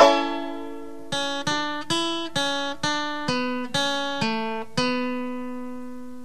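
Background music from a plucked acoustic string instrument: a chord, then a slow run of single notes about every half second, the last one left to ring out.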